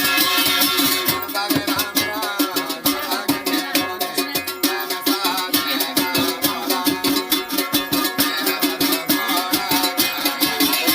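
Uptempo Garhwali folk dance music: a quick, even percussion beat under a plucked-string melody.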